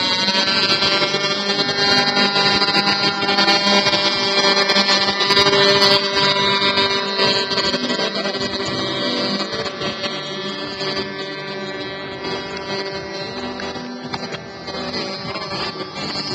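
Radio-controlled model seaplane's engine revving up and held at full throttle for the takeoff run off the water, then growing fainter as the plane climbs away.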